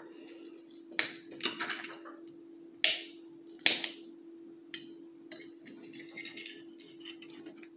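A metal fork clinking and scraping against a dinner plate while cutting into hash brown patties, about six sharp, uneven clinks, over a steady low hum.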